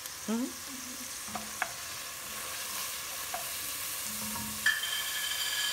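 Wooden spoon stirring chopped onions, garlic and cumin in an enamelled cast-iron pot, over the steady light sizzle of the onions frying, with a few soft knocks of the spoon. About a second before the end a knock is followed by a steady high tone.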